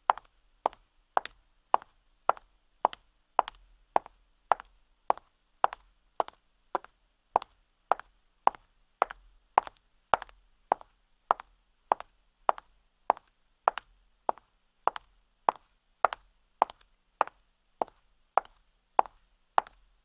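Footsteps on concrete at a steady walking pace, a little under two steps a second, each a short, sharp tap.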